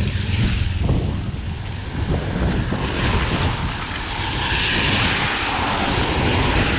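Busy road traffic: a steady low engine rumble with tyre hiss that swells about halfway through as a vehicle passes.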